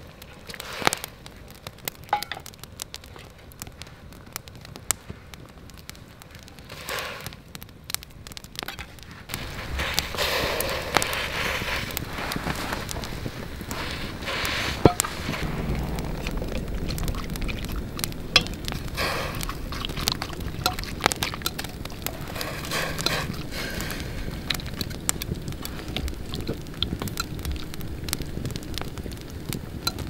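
Wood campfire crackling with sharp pops. About ten seconds in, a louder steady hiss joins from the pot of sliced onions cooking over the fire.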